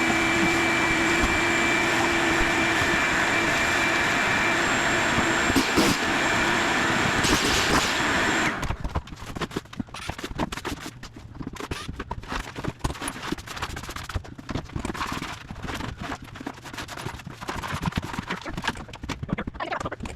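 A power tool runs steadily with a constant whine, then shuts off abruptly about eight and a half seconds in. Irregular knocks and clatters of broken tile and debris being handled follow.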